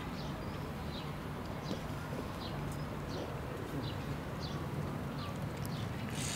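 A small bird chirping over and over: short, high, falling notes, a bit more than one a second, over a low steady hum.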